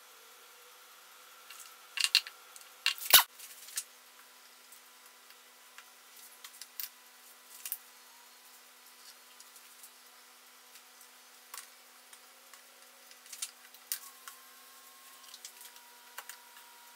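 Scattered clicks and light knocks of small motor parts being handled, the drill motor's end cap, brush plate and metal can, loudest two or three seconds in and sparser afterwards, over a faint steady hum.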